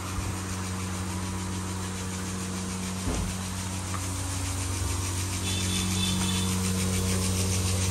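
Steady low hum of running machinery, with one brief low thump about three seconds in.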